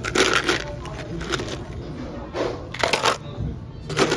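Plastic ice scoop digging into a cooler full of ice cubes, the cubes clattering and crunching in several short bursts.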